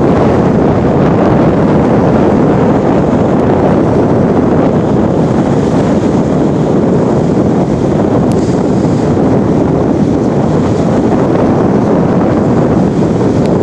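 Wind buffeting the microphone in a steady, loud rush, over small waves washing up on the shore.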